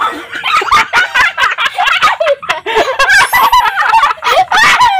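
A boy laughing hard while being tickled along the ribs, in loud cackling shrieks that come in quick bursts, with a man's laughter joining in.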